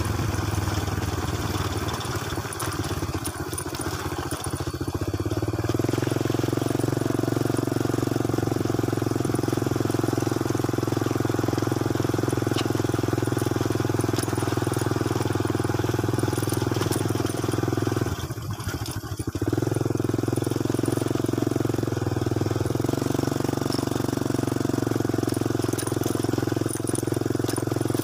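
Motorcycle engine running steadily under way on a gravel track. The engine eases off for a few seconds early on and comes back up, then drops briefly about two-thirds through and picks up again.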